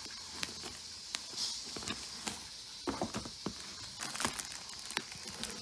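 Scattered light taps and brief rustles of a cardboard box and its plastic wrapping being handled, with a cluster of rustling about three seconds in.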